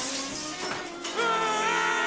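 Cartoon score: a noisy, jangling hit dies away, then about a second in a held chord of several notes comes in.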